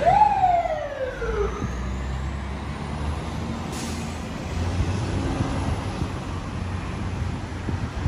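Fire truck siren giving one short whoop near the start: a quick rise in pitch, then a slow fall, cut off after about a second and a half. After that comes the low rumble of the aerial ladder truck's engine as it pulls away.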